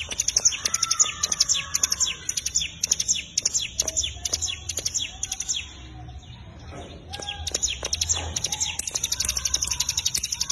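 Ciblek gunung (hill prinia) singing a fast, vigorous 'gacor' run of high, sharp repeated notes, several a second. The song slackens briefly about halfway through, then picks up again just as fast.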